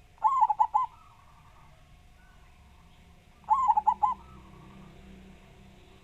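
Zebra dove (perkutut) cooing: two short phrases of four or five quick notes each, about three seconds apart.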